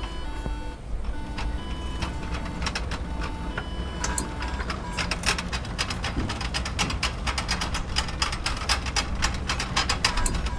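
Hospital machine ambience: short electronic beeps at a few different pitches over a low hum, giving way about halfway through to a fast run of mechanical clicking.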